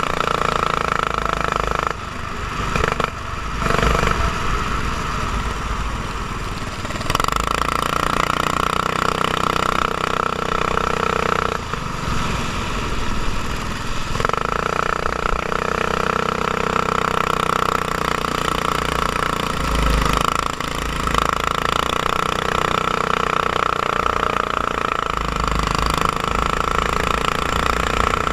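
Go-kart engine running hard close to the microphone, its high, steady note dropping off for a few seconds about two seconds in and again around twelve seconds in as the throttle is lifted, then picking back up.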